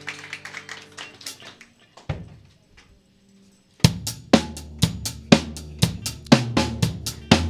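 Applause dies away, then after a short pause a live band's drum kit starts a steady beat of kick and snare hits, about four a second, over a held bass note, opening a song.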